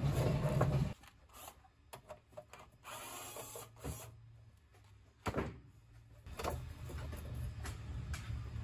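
Power drill running in short bursts as it backs the screws out of a battery charger's metal case, with clicks and a sharp knock from the sheet-metal case being handled.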